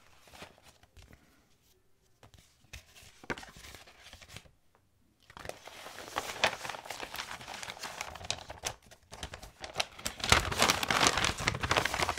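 Paper and stickers rustle faintly as they are handled. From about five seconds in, a yellow mailing envelope crinkles without a break as its paper contents are pulled out, loudest near the end.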